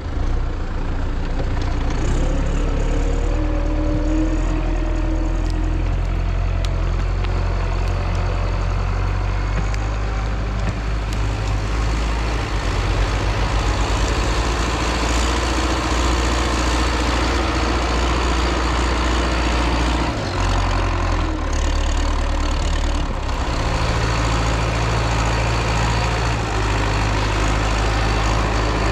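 An MTZ-82 tractor's diesel engine running steadily. Its note dips briefly about two-thirds of the way through, then picks up again.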